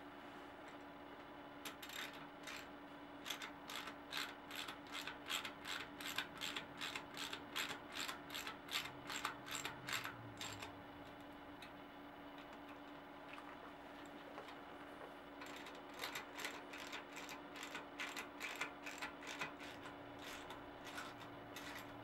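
Ratchet handle clicking as it drives the bolts of a six-bolt disc brake rotor onto a bicycle hub. The clicks come at about three or four a second in two runs, with a pause of a few seconds between them.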